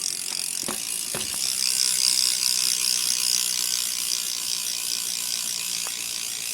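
BMX rear hub freewheeling as the wheel spins, its pawls clicking so fast they blend into a steady high buzz that eases slightly after about two seconds.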